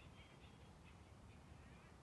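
Quiet forest ambience: faint, rapid bird chirps that die away about halfway through, over a low steady rumble.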